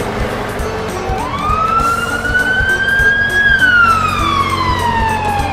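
Siren-like wailing sound effect over background music with a steady beat. One slow cycle rises quickly about a second in, climbs to a peak past the middle, then falls slowly.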